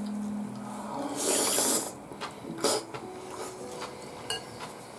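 Person slurping ramen noodles off a spoon: one loud, hissing slurp lasting under a second, about a second and a half in. A few light clicks of the spoon or chopsticks against the ramen bowl follow.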